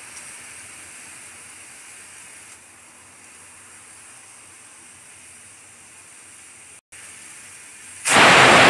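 Aluminium stovetop pressure cooker on a gas burner hissing steadily with steam, then its weight valve lets out a loud whistle blast about eight seconds in. This is the third whistle, the sign that the cooking time is up.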